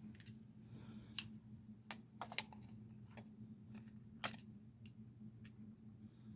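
Faint scattered clicks and taps of a plastic power-tool battery adapter being handled and fitted, with sharper ticks about a second in, around two and a half seconds and just past four seconds, over a low steady hum.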